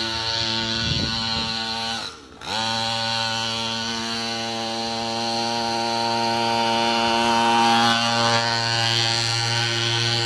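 A 49cc two-stroke mini bike engine running at a steady high buzz. About two seconds in it nearly cuts out, the pitch sagging and the sound dropping briefly, then it picks back up, a stumble of an engine that still needs a little fine tuning. It grows louder again toward the end.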